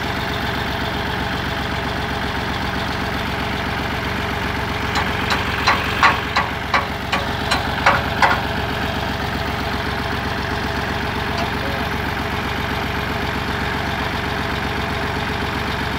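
New Holland Fiat 480 tractor's three-cylinder diesel idling steadily. About a third of the way in, a run of roughly ten sharp knocks, a few per second, sounds over the engine for some three seconds.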